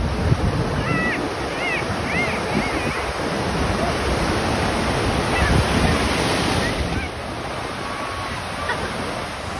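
Ocean surf breaking and washing through the shallows in a steady rush, with wind buffeting the microphone in low gusts. A few faint high calls come in the first few seconds.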